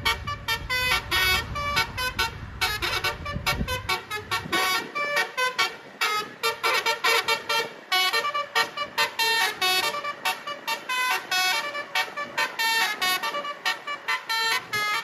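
Basuri telolet horn, a multi-tone musical horn, playing a fast staccato melody of short, quickly changing notes. A low rumble underneath fades out about four seconds in.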